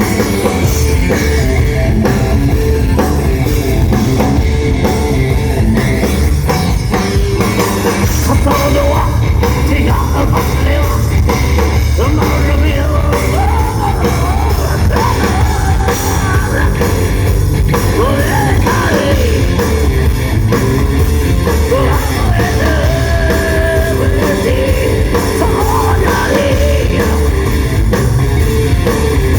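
Rock band playing live at a sound check: a steady drum-kit beat and heavy guitar, with a singing voice coming in about eight seconds in.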